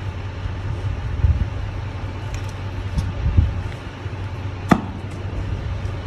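An oxy-acetylene cutting torch being lit with a sharp snap about three-quarters of the way through, over a steady low hum and a few soft knocks.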